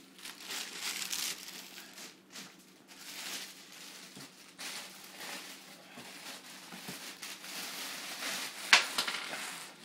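Plastic wrapping crinkling in bursts as it is handled and pulled off a PC case, with one sharp tap near the end.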